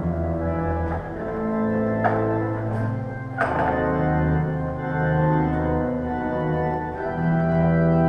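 Organ music: slow, held chords over sustained deep bass notes, with a few short knocks in the first few seconds.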